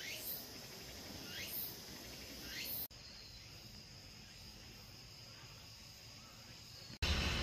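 Insects droning steadily and high-pitched, with a rising call repeating about once a second for the first three seconds. The drone carries on more faintly after a sudden cut. Near the end it cuts abruptly to louder, low, rumbling noise.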